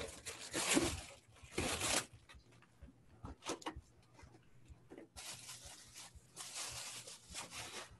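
Gift wrapping paper being torn and handled, then a cardboard box lid lifted and tissue paper rustling inside it. The paper noise comes in two stretches, one at the start and a longer one from about five seconds in, with small crinkles and taps between.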